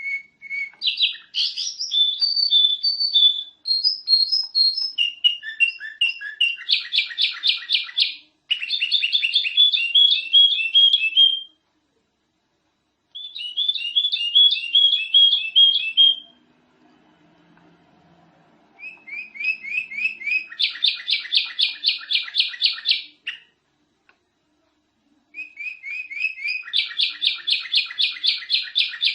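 Domestic canary singing in long phrases of rapid, rolling trills and chirped notes, with short pauses between phrases.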